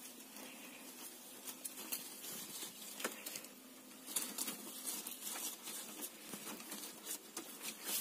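Light rustling and scattered irregular clicks of a leafy berry branch being handled against a wire-mesh bird cage and its woven plastic sack cover, with one sharper click about three seconds in.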